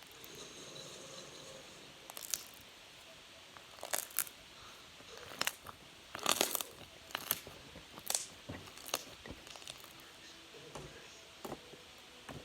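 Scattered sharp clicks and crackles at irregular intervals, with a louder crunchy cluster about six seconds in, like something being handled and squeezed by hand.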